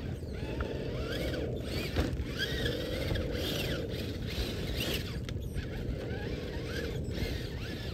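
Electric motor and geartrain of a radio-controlled rock crawler whining in short bursts, the pitch rising and falling with the throttle, over a steady hiss of rain.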